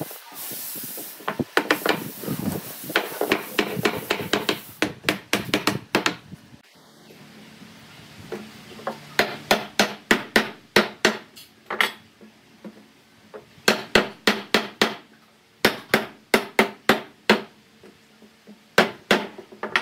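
Hammer blows on a wooden table frame, knocking its joints home: quick runs of sharp strikes, several a second, in bursts with short pauses between.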